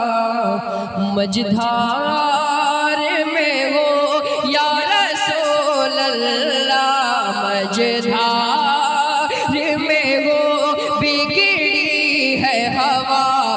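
A man singing a naat unaccompanied, in long, drawn-out melodic phrases that bend in pitch.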